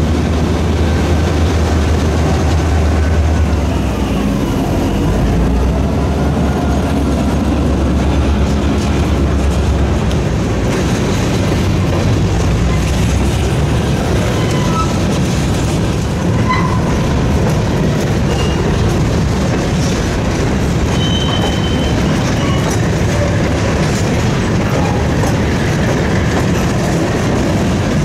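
Freight train passing close by. The diesel locomotives' engine rumble trails off over the first few seconds, and then a string of covered hopper cars rolls past, the wheels clacking over the rail joints with a few brief high squeals.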